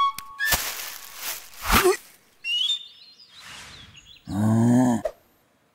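Cartoon sound effects: a few quick plucked notes, then two whooshes as the hare dashes off. About four seconds in, the bear gives a short, low groan.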